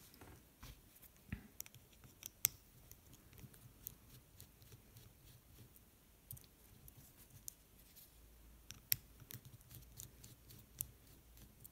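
Faint, scattered small clicks and ticks from a precision screwdriver and fingers working the small plastic and metal parts of a DJI Mavic Pro gimbal. The sharpest clicks come about two and a half seconds in and again near nine seconds.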